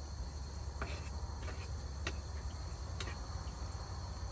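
Ridge Monkey gas stove burners running with a steady hiss and low rumble, turned down to a low heat. A short sharp pop about once a second comes from bolognese sauce simmering in the pan.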